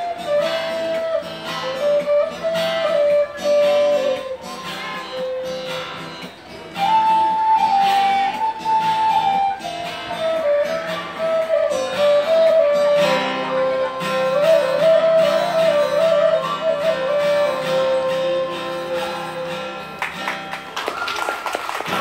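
An end-blown flute plays a stepping lead melody over strummed acoustic guitar in an instrumental passage. The flute line ends about a second before the close, leaving the guitar chord ringing.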